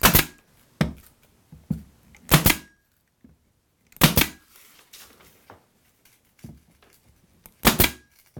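Pneumatic angled finish nailer firing nails through wood trim, four sharp shots with a few lighter knocks between them.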